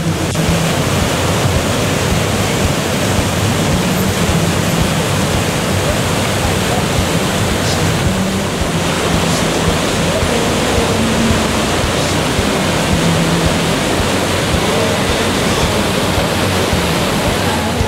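Loud, steady rushing of a waterfall's whitewater, even and unbroken.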